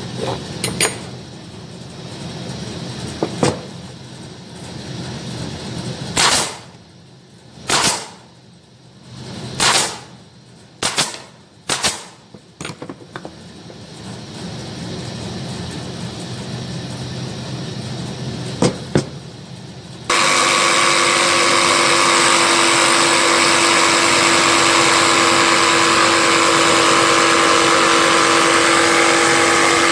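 Wooden parts being handled and knocked on a plywood workbench: scattered light clicks and a run of sharp knocks between about 6 and 12 seconds in. About two-thirds of the way through, a loud steady motor noise with a constant low hum starts abruptly and keeps going.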